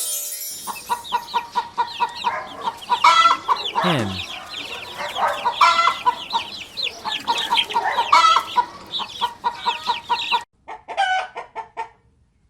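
Domestic hen clucking in quick, continuous runs, broken by a few louder squawks. After a sudden cut near the end, only a few sparse, softer calls remain.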